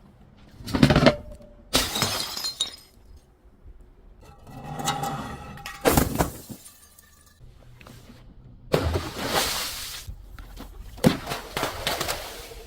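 Glass bottles being crushed and shattering, in about six separate sudden bursts with short gaps between them.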